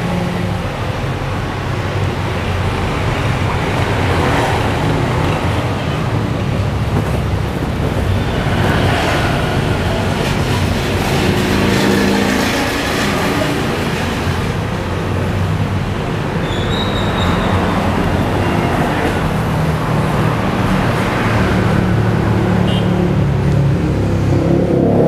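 Steady road traffic: vehicle engines running and passing, with engine pitches that shift every few seconds.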